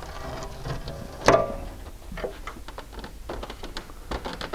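Door glass clamped by its glued-on steel regulator bracket in a bench vise, being pried and rocked by hand to break the silicone bond: a sharp knock about a second in, then a scattering of small clicks and ticks.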